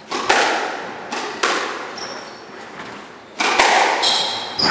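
Squash rally: the hard rubber ball cracking off rackets and the court walls about five times, each hit ringing in the court. Short high squeaks of court shoes on the wooden floor come about two seconds in and again near the end.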